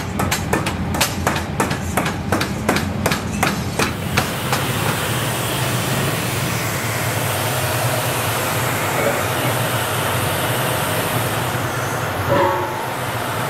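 Sharp metal knocks, about three a second, stop about four seconds in. Steady workshop machinery noise follows, with a brief ringing metal clink near the end.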